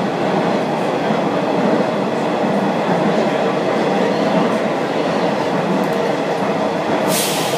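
Athens Metro train running, heard from inside the carriage: a steady rumble of wheels and running gear on the track. A short, sharp hiss comes near the end.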